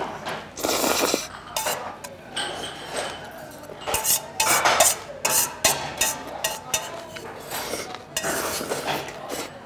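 Stainless steel chopsticks clinking and scraping against a stainless steel bowl while noodles are slurped. The bowl is tipped up to the mouth and the last of the noodles is scraped out of it.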